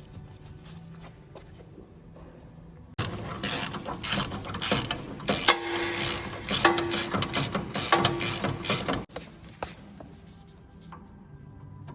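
Ratcheting tool clicking rapidly in loud runs for about six seconds, working a bolt.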